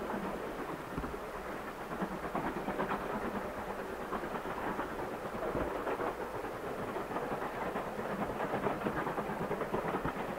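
Distant LMS Black 5 two-cylinder 4-6-0 steam locomotive working hard up a gradient: a steady, noisy exhaust sound carried across a valley.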